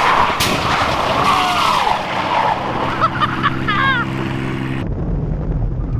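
2000 Ford F-150 pickup sliding in tight circles on asphalt: the engine running hard under load while the rear tires squeal and skid, with a few short rising-and-falling squeals past the middle. About five seconds in, the sound changes suddenly to a lower rumble.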